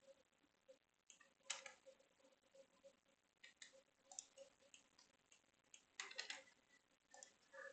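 Near silence broken by faint, scattered clicks of a computer mouse and keyboard, with a cluster about one and a half seconds in and another around six seconds in.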